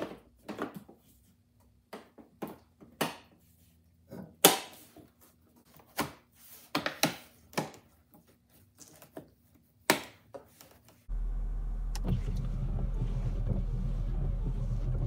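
Plastic cowl and trim covers being snapped and pressed into place, a run of sharp separate clicks and knocks. About eleven seconds in this gives way suddenly to a steady low rumble of the car running, heard from inside the cabin.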